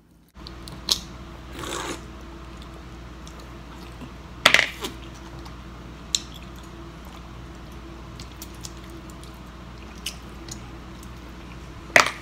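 Clicks and clacks of sun-dried clam shells being pried open and set down on a plate, with some eating sounds, over a steady low hum. The loudest clacks come about four and a half seconds in and at the very end.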